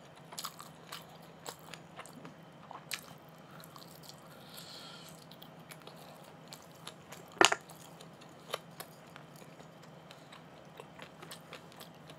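Close-miked chewing and biting as a person eats marinated grilled beef short ribs (LA galbi) with rice. Small wet clicks are scattered throughout, with one sharper click about seven and a half seconds in.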